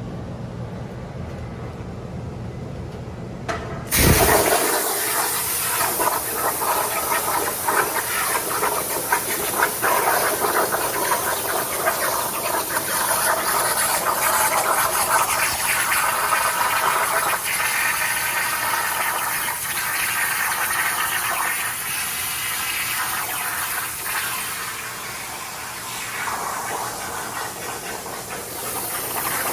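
CNC plasma cutter cutting 1/8-inch steel plate: after a low steady hum, the arc strikes about four seconds in with a sudden loud hiss and crackle that runs on, its level wavering a little.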